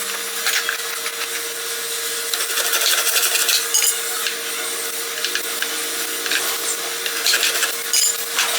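Irregular scraping and rubbing strokes of hand-tool work over a steady mid-pitched hum.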